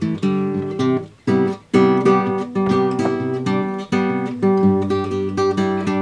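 Background theme music: strummed acoustic guitar in a steady rhythm, with a short break about a second in.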